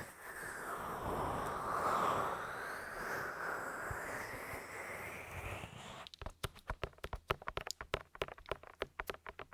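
Close-up ASMR trigger sounds on a 3Dio binaural microphone: about six seconds of a soft, continuous rushing noise, then a fast, irregular run of sharp little clicks.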